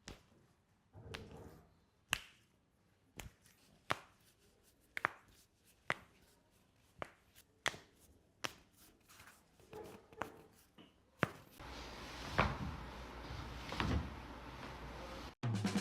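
A series of sharp, short taps, roughly one a second, with a steady low noise building under them in the last few seconds. Music starts at the very end.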